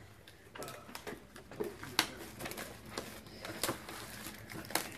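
Plastic shrink-wrap crinkling and tearing under fingers as a cardboard Pokémon Elite Trainer Box is unwrapped, with irregular sharp ticks and rustles.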